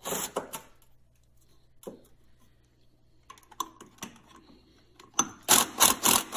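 A cordless impact tool and socket working the motor-mount bolts in short bursts, loosening them a little at a time: a quick burst of sharp metallic clicks at the start, a few scattered clicks in the middle, then a fast run of rattling clicks near the end.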